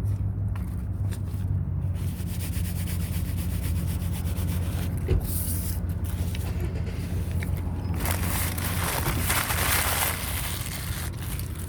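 Rubbing and rustling noise over a steady low hum, the rustling loudest from about eight to ten seconds in.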